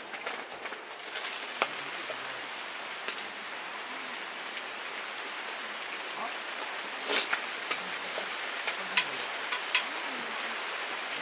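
Steady rain falling, with a few sharp ticks and taps scattered through it, a cluster about seven seconds in and more near the end.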